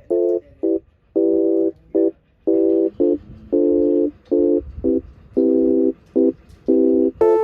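An electronic buzzing tone at one steady pitch, pulsing in an uneven pattern of long and short beeps, about two a second. Near the end a higher tone that steps down in pitch cuts in.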